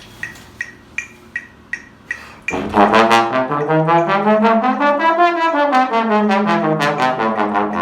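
Steady short ticks about every 0.4 seconds. From about two and a half seconds in, a brass instrument plays a C scale, stepping up in pitch and then back down, over the ticks.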